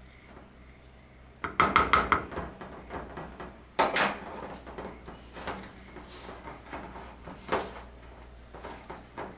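A spoon and then hands mix dough in a stainless steel bowl, making irregular metallic clinks and scrapes against the bowl. The clatter comes in bursts, loudest about two and four seconds in.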